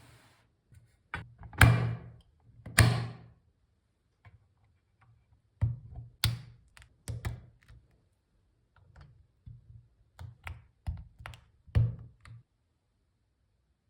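Chilkey ND75 mechanical keyboard with lubed Gateron Smoothie linear switches, a polycarbonate plate and PBT keycaps, struck key by key in scattered groups rather than typed fast. Two heavier, deeper key thuds come near the start, then clusters of lighter clacks; it stops about a second and a half before the end.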